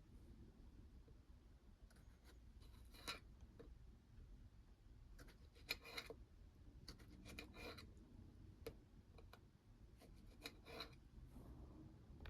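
Faint, scattered clicks and light scraping: handling sounds during food preparation, over a quiet background.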